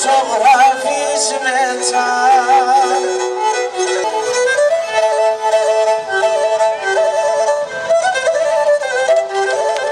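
Pontic lyra (kemenche) bowed solo, playing an ornamented folk melody with quick trills.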